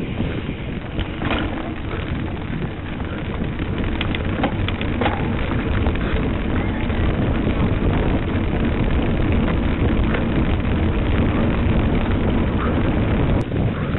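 Bicycle rattling and its tyres rumbling over cobblestones, heard from a camera riding on the bike, with wind on the microphone. A steady loud rumble with scattered sharp clicks, getting louder about four seconds in.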